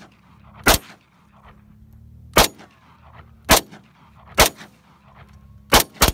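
Yugoslavian M59/66 SKS rifle in 7.62x39 firing semi-automatically: six sharp shots, roughly a second apart, the last two in quick succession near the end.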